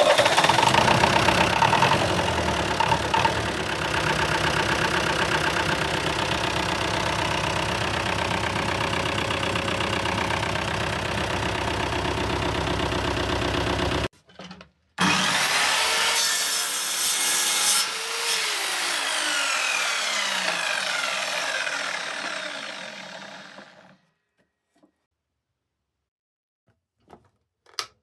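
Wood being sawn, in one long stretch of about fourteen seconds, then after a short break a second stretch that fades away about three-quarters of the way through.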